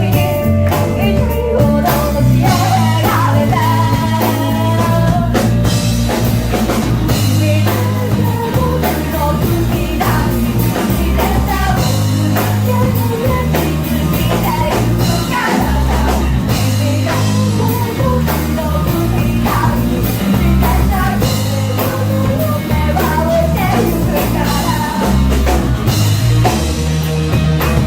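Rock band playing an original song, with guitar and drums.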